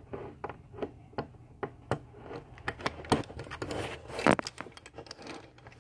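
Mission Belt's ratchet buckle clicking as the strap is pulled through it, a string of irregular clicks about two or three a second, with one louder click about four seconds in.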